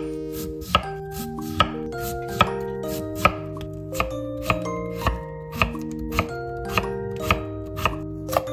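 Kitchen knife chopping daikon radish and then celery on a wooden cutting board, each stroke landing as a sharp knock on the board. The strokes come a little under one a second at first and quicken to about two a second halfway through. Soft background music with held notes plays underneath.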